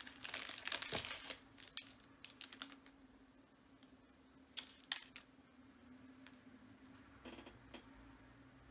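Small clicks and light rustling as a thin beaded chain necklace and its packaging are handled and untangled by hand. The clicks come thick and fast for the first couple of seconds, then only a few scattered ones, over a faint steady hum.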